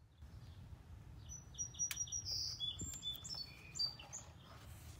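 Birds chirping in short high-pitched calls, over a low steady background rumble, with a single sharp click about two seconds in.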